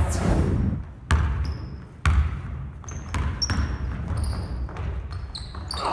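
Basketball dribbled on a gym's wooden floor, each bounce a sharp knock with a short echo, about a second apart at first and then quicker, with short high sneaker squeaks in the second half.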